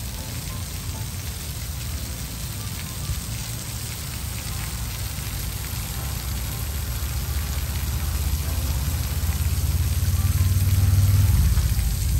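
Misting water feature spraying fine jets of mist over rocks: a steady hiss and patter of spray. A low rumble builds over the last few seconds and becomes the loudest sound.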